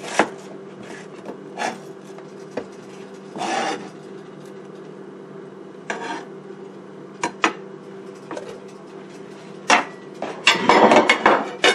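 Scattered knocks and short scrapes of kitchen handling on a cutting board, with a plastic blender jar picked up and rattled on the board near the end. A steady low hum runs underneath.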